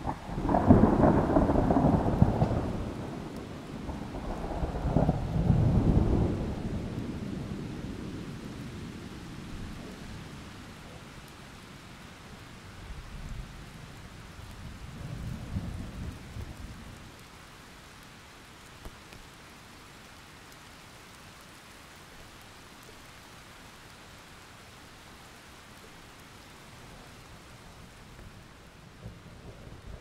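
Thunder breaks suddenly at the start and rolls in two heavy waves over the first several seconds, dying away by about ten seconds in. A weaker rumble follows around halfway, then steady rain hiss, with the next thunder starting to build near the end.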